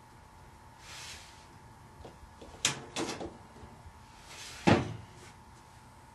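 Clicks and knocks of something being handled, like a door or cupboard: a soft swish, two sharp clicks close together, then a brief rush ending in a louder knock.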